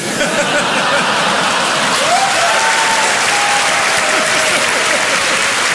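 Large audience applauding steadily in response to a joke, with a few voices calling out of the clapping about two seconds in.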